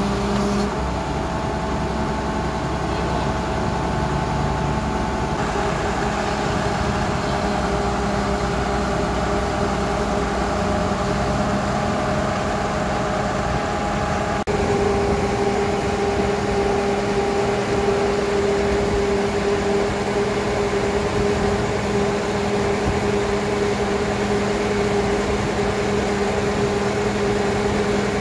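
Horizontal directional drilling rig running: a steady engine and hydraulic hum with held whining tones. The tones shift and it grows a little louder about halfway through.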